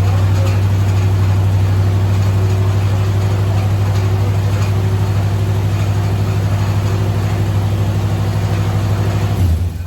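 A motor running steadily with a loud, deep hum, then cutting off abruptly near the end. Right afterwards it is said to be barely turning the thing it drives.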